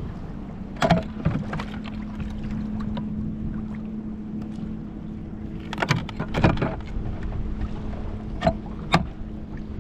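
Wind and lake chop against a kayak, with a low steady hum under it. Hard knocks and clatters of gear being handled aboard, a fish measuring board among it: a couple about a second in, a cluster past the middle, and two more near the end.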